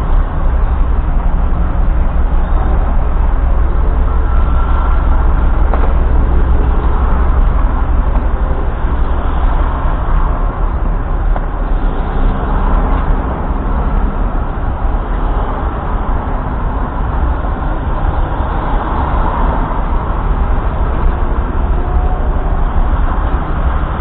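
A motor vehicle driving: a steady, loud low rumble of engine and road noise.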